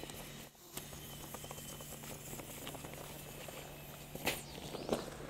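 Air valves being unscrewed from the inflatable air poles of a camper-trailer annex: fabric rustling and small plastic clicks of handling, two sharper clicks about four and five seconds in.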